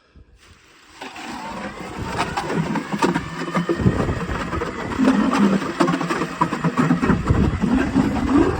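A small gas engine starts up and revs, its pitch rising, then runs hard and steadily under load.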